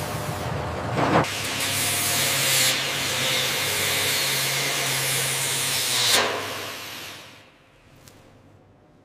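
A steady, loud hiss over a low hum, with a short louder burst about a second in; it dies away after about six seconds.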